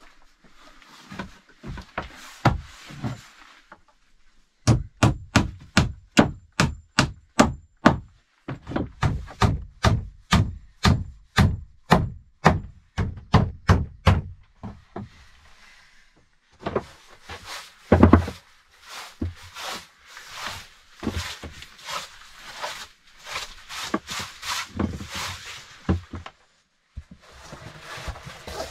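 Nails being hammered into wooden planks with a hatchet: a long run of steady, sharp blows, about two to three a second, with a short break partway through. Then come irregular knocks and rustling, with one heavy thump about 18 seconds in.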